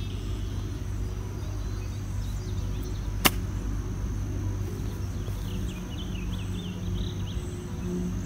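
A single sharp click of a golf club striking the ball on a short chip shot from the rough, about three seconds in. A steady low outdoor hum runs underneath.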